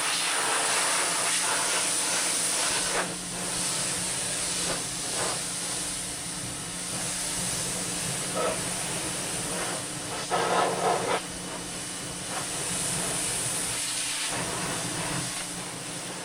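Pressure washer spraying a mud-covered ATV: a steady hiss of the water jet over the washer's motor hum, with louder splashing about ten seconds in as the jet hits the machine. It cuts off at the end.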